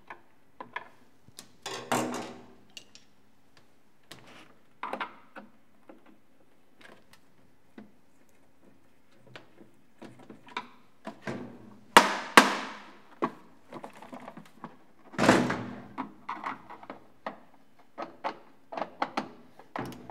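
Handling noise from taking the screws out of a clear plastic crank radio's case: scattered clicks and scrapes of a screwdriver, and the plastic case knocking on a metal workbench. There is a sharp clatter about twelve seconds in and a heavy thunk about three seconds later.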